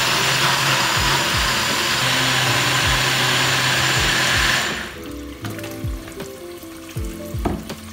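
Personal blender running at full speed blending a smoothie, then switching off about four and a half seconds in.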